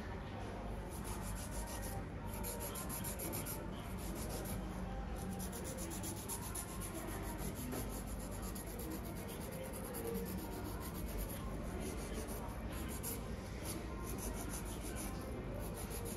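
Fingernails being filed or buffed, a steady, continuous rubbing.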